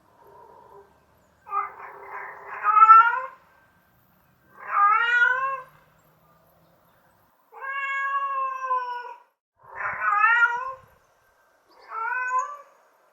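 Domestic cat meowing: five separate meows one to two seconds apart, most rising and then falling in pitch, the first the longest and loudest.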